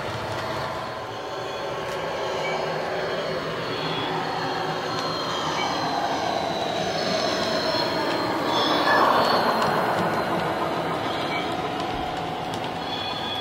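Simulated Class 22 diesel-hydraulic engine sound from a model locomotive's DCC sound decoder, played through its onboard speaker, with a light turbo whistle over the engine note. It grows louder as the model approaches, is loudest about nine seconds in as it passes close, then eases off.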